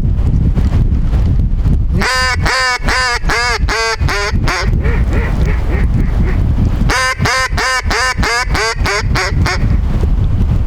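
Mallard hen-style quacking in two quick runs of about eight loud quacks each, roughly three a second, with fainter quacks between them. Heavy wind rumbles on the microphone throughout.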